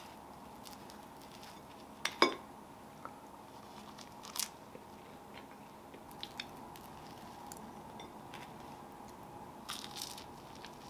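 Sparse kitchen handling sounds over a faint steady hum: a sharp ringing clink about two seconds in, then a brief scrape or rustle, a few light taps, and a short cluster of scrapes near the end.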